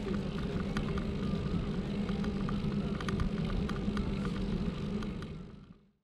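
Wind and rolling noise from a moving bicycle ride, picked up by a camera on the bike, with scattered small clicks; it fades out near the end.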